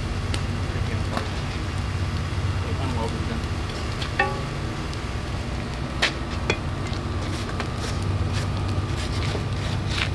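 Blacksmith's forge fire with its air blower running steadily, a low hum with a crackling hiss, and a few sharp metallic clinks of tongs about four and six seconds in as the hot workpiece is handled.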